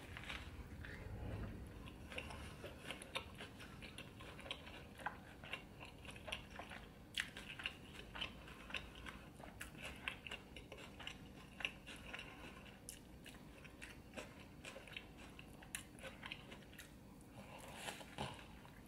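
Close-miked chewing of a mouthful of salmon burger, with many small mouth clicks and smacks scattered irregularly throughout.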